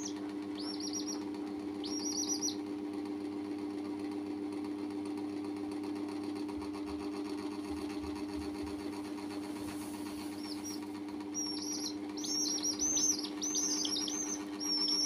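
Domestic chicks peeping in short, high, arching calls: a few at the start, then a quick run of peeps near the end. A steady low hum runs underneath.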